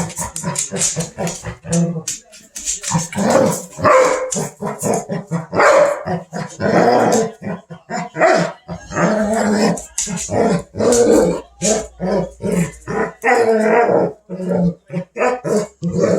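Two dogs growling and barking in a noisy tussle over a toy, with many short barks and growls in quick succession throughout.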